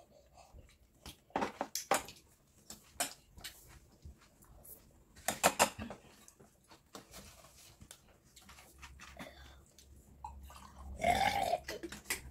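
A loud, drawn-out human burp about eleven seconds in, a real 'king's burp'. Before it come scattered short clicks and eating noises of chopsticks and spoons in bowls.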